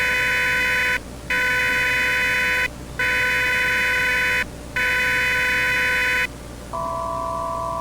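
Emergency Alert System SAME header: four bursts of screechy digital data tones, each about a second and a half long with short gaps between them, followed near the end by a steady, unwavering attention tone made of several pitches sounding together.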